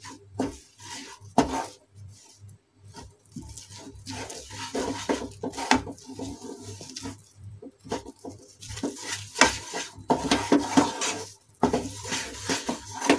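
Wooden spatula stirring and scraping a thick coconut and milk-powder paste around a non-stick frying pan, a run of irregular scrapes and light knocks that comes thicker and faster after the first few seconds.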